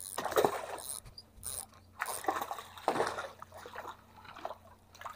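Small snook splashing and thrashing at the water's surface as it is hooked and lifted out on the line, in irregular short bursts.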